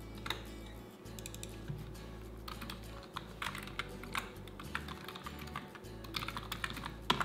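Computer keyboard typing in short bursts of clicks, over quiet background music.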